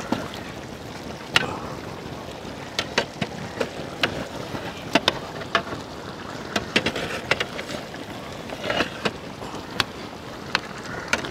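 Perforated metal ladle stirring rice and mutton in a large metal biryani pot: irregular clinks and knocks of the ladle against the pot over a steady background hiss.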